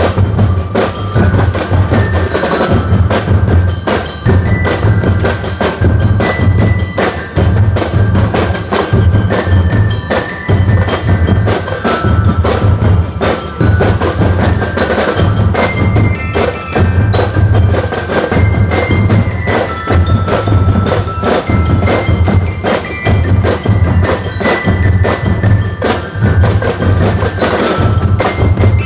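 Drum and bugle corps percussion playing: bell lyres ringing a melody in short bright notes over rapid snare drum strokes and a steady bass drum beat.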